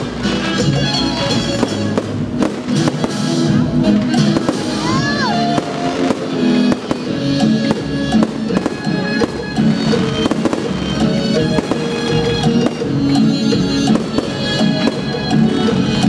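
Fireworks bursting in quick, irregular succession over loud music, with a short rising whistle about five seconds in.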